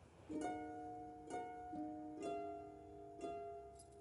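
Background music: gentle plucked string notes, a new note about once a second, each ringing and fading.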